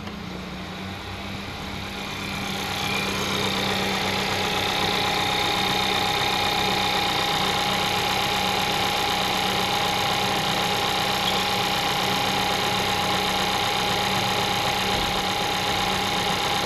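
A 2012 VW Golf's 1.2-litre turbocharged four-cylinder petrol engine idling steadily with a new water pump fitted. The harsh water-pump noise is gone. The sound grows louder over the first few seconds, then holds even.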